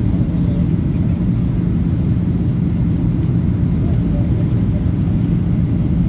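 Airliner cabin noise in flight: a steady low drone of jet engines and rushing air, with a constant low hum underneath.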